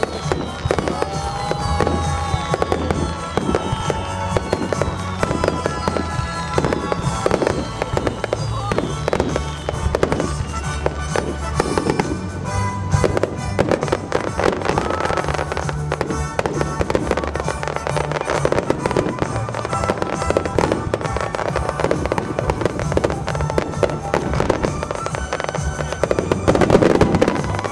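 Star mine fireworks finale: shells bursting and crackling in a dense, unbroken barrage, with several falling whistles through the first ten seconds or so and the loudest surge near the end. Music plays underneath.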